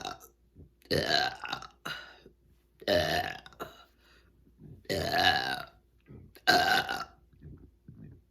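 A woman's loud burps in a row, about one every two seconds: the tail of one at the very start, then four full burps, each about half a second long with a clear voiced pitch.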